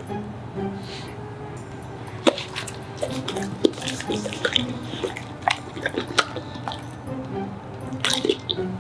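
A dog licking its lips and smacking its mouth after eating, in a string of short wet clicks, over light background music.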